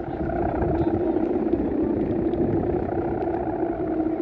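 A steady humming drone from a big Balinese kite's guangan hummer (a bow-string hummer) vibrating in strong wind, with wind rumbling on the microphone underneath.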